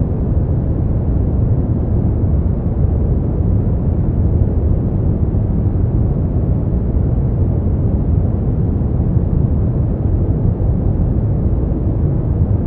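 Brown noise: a steady, deep hiss, strongest in the bass and thinning out toward the highs, without change.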